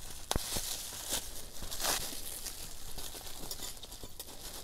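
Bubble wrap crinkling and rustling as it is unwrapped by hand from a small plastic model train car, with a few sharp crackles in the first two seconds.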